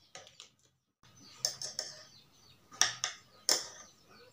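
Chopsticks clicking and scraping against a plate and a bowl while stirring instant noodles, with a few sharp clacks, a couple of them a second or so apart. There is a brief silent gap just before the first second.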